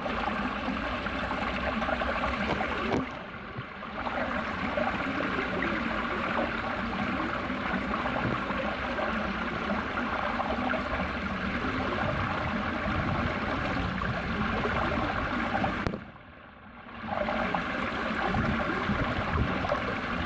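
Shallow water rushing and splashing steadily as it runs over granite blocks and down a stepped stone channel. It drops away briefly twice, once about three seconds in and again near the end.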